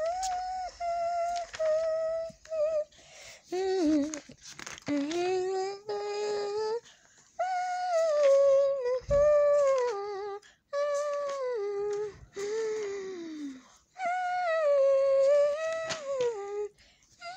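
A young child humming a wordless tune in long, gliding notes, phrase after phrase with short breaks between.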